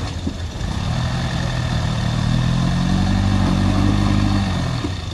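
A motor vehicle's engine pulling up through its revs from about a second in, holding there, then dropping back just before the end.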